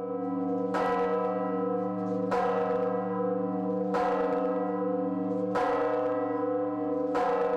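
A large church bell ringing: struck five times, about every 1.6 seconds, each stroke bright at first, with a deep hum carrying on underneath between strokes.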